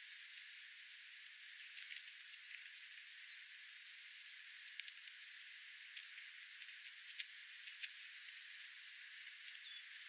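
Faint, irregular sharp ticks and taps of a Steller's jay and a California scrub-jay pecking at birdseed on gravel, bunched around five seconds in and again between six and eight seconds, over a steady outdoor hiss. A few brief, faint high chirps, one falling in pitch near the end.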